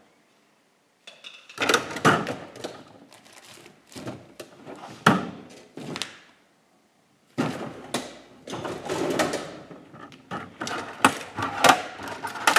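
Handling noise at a studio work table: an irregular run of knocks, clatters and rustles as objects are moved about, breaking off twice into dead silence.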